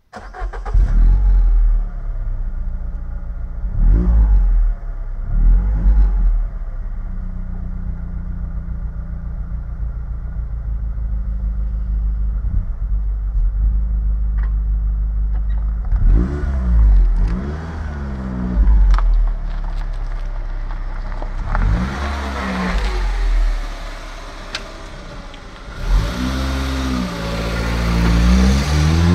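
Peugeot 207's 1.4 VTi four-cylinder petrol engine through an AMA aftermarket exhaust. It starts up, blips the throttle a few times in the first six seconds, then idles steadily. After that it is revved in short blips, with a longer, higher rev near the end.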